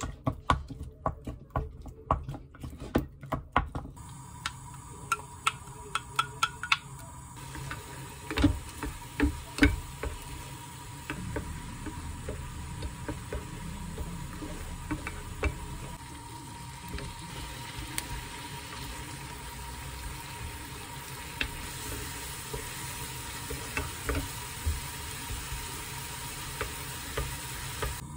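A wooden spoon clinking and tapping against a glass mug as a sauce is stirred, in quick repeated strokes for about four seconds. Then food sizzles in a square frying pan, with scattered scrapes and taps of the wooden spoon as it is stirred.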